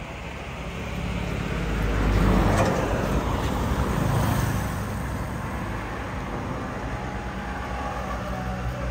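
A motor vehicle passing close by, its rumble swelling about two seconds in and fading by about five seconds, over a steady low traffic hum.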